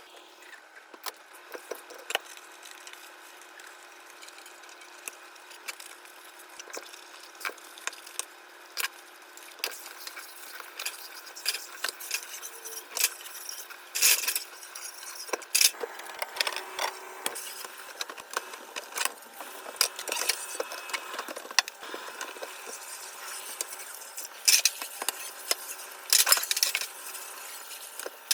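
Scattered light clicks, knocks and clatter of household objects being handled and set down, over a faint steady hum.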